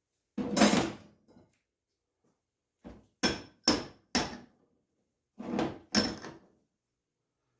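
Short pieces of steel angle iron and threaded rod clanking as they are handled. There are about seven separate metallic knocks, some with a brief ringing, and they come more quickly in the middle.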